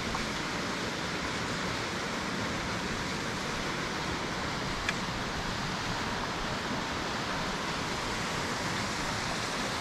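Steady rushing of a mountain stream, an even wash of water noise, with one short click about five seconds in.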